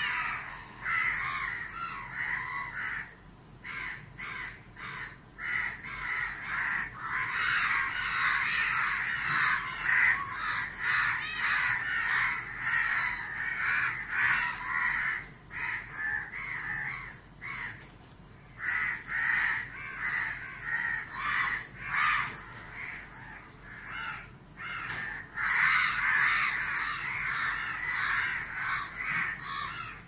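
A flock of house crows cawing, many harsh overlapping caws almost without pause, as they mob a barn owl.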